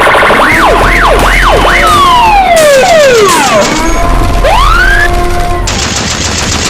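Loud, chaotic mix of electronic emergency sirens, several overlapping tones sweeping quickly up and down and sliding down in long wails. A harsh hissing noise joins near the end. It is a collapse-sound noise track for desensitising protection dogs.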